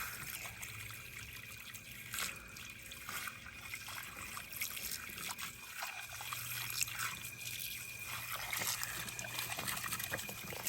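Rinse water trickling and dripping off a skid steer wheel, with small irregular splashes.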